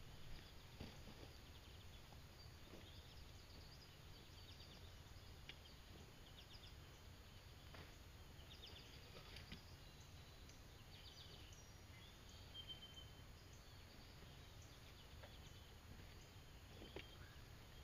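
Near silence: faint outdoor ambience with small birds chirping and trilling now and then over a low steady rumble, and a few faint knocks.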